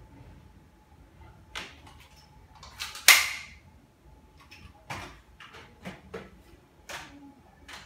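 A wooden wardrobe door being opened, then a string of clicks and knocks as a Nerf blaster is handled and things are moved about on the wardrobe shelves. The loudest is a short, hissy burst about three seconds in.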